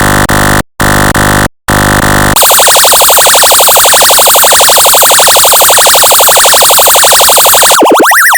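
Electronically synthesized emergency siren sounds. First come three loud, harsh buzzing blasts with short breaks between them. Then a siren tone warbles very fast, and near the end it changes to a siren sweeping up and down about three times a second.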